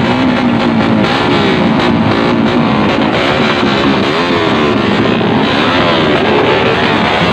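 Motorcycle engine revving loudly, its pitch rising and falling in repeated blips, with music playing underneath.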